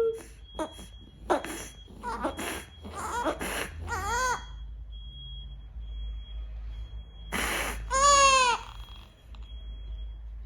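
Baby with a tracheostomy crying through a speaking valve: several short cries and whimpers, then one longer arching cry about eight seconds in, the loudest. A faint steady high-pitched tone runs underneath.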